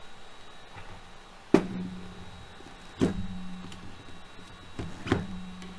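Three sharp clicks of the airsoft gun's grip frame and its parts being handled and fitted during reassembly, each followed by a brief low hum.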